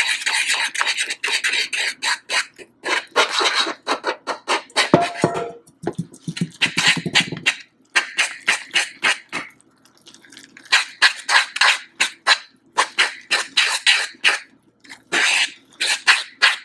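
A fork stirring and scraping against a frying pan, working flour into hot buttery broth for coxinha dough, in quick runs of strokes with a couple of short breaks.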